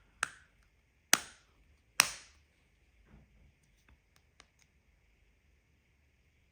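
Plastic casing of a Volvo key fob being snapped back together: three sharp clicks about a second apart, then a few faint ticks of plastic being handled.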